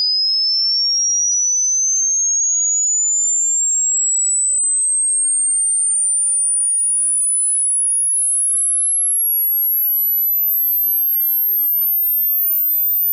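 Pure sine test tone for an ear-age hearing test, a single high whistle-like tone gliding steadily higher at constant loudness until it is extremely high-pitched.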